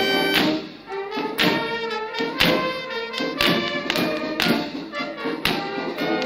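Music played on brass instruments, with sustained chords over a steady beat.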